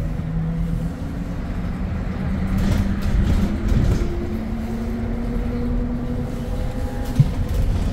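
City bus moving in traffic, heard from inside the cabin: steady road and drive rumble with a faint drawn-out whine, and one sharp click about seven seconds in.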